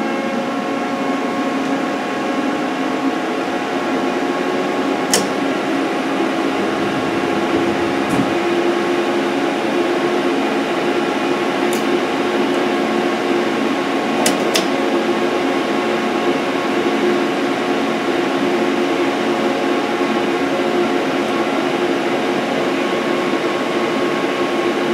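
A powered-up CNC lathe and its electrical cabinet, with the freshly repaired Yaskawa spindle drive switched on, give a steady machine hum of several tones. A few sharp clicks come through it, two close together a little past halfway.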